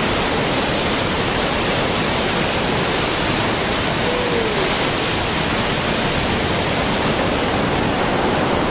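Spokane Falls on the Spokane River: a loud, steady rush of falling water.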